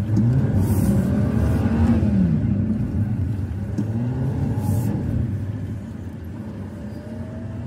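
Road vehicle engine running in traffic, its pitch rising and falling as it speeds up and slows, growing quieter in the last couple of seconds.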